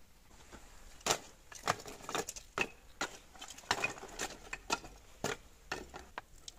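Dry split wood kindling clattering as it is laid by hand into a brick trough: an uneven string of sharp wooden clacks and knocks, starting about a second in.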